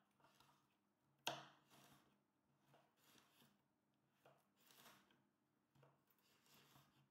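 Faint kitchen-knife cuts through dried coconut on a wooden cutting board: soft, unevenly spaced taps of the blade on the board, about one every second, with one sharper knock about a second in.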